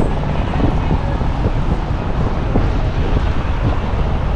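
Steady, loud rumbling of wind buffeting the microphone, mixed with street traffic noise.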